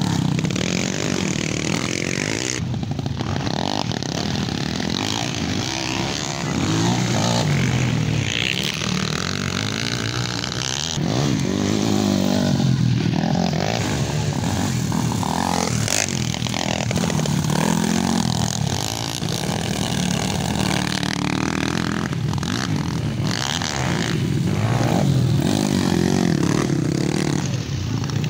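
Kawasaki KLX150 dirt bikes' single-cylinder four-stroke engines revving hard and easing off over and over as they race through the corners. The engines swell louder each time a bike passes close.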